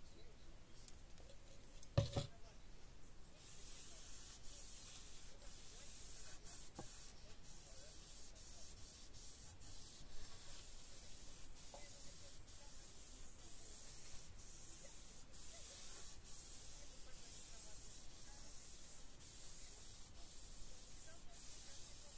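A sharp click about two seconds in, then a hand rubbing a liquid finish into the radio case's wood veneer: a faint, steady hissing rub in repeated back-and-forth strokes, roughly one or two a second.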